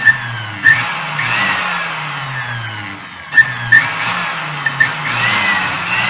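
Electric motor of an opened Moulinex blender running at full power in two spells of about three seconds each, its whine sagging in pitch through each spell, with sharp clicks near each start. It runs without shorting, the sign that the swapped switch terminals have cured the short circuit.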